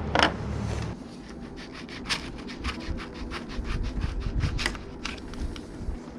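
Hands working on a motorcycle's handlebar and controls: a sharp knock right at the start, then a run of irregular rubbing, scraping and light clicks as the parts are handled.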